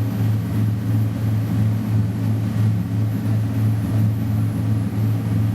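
Boat engine running with a steady low drone that pulses evenly about three times a second.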